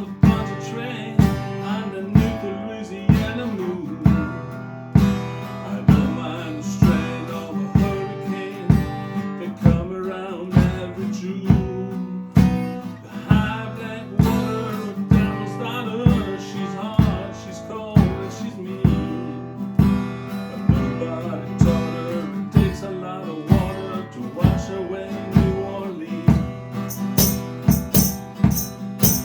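Acoustic guitar strummed in a steady rhythm, about one strong strum a second, playing a song accompaniment.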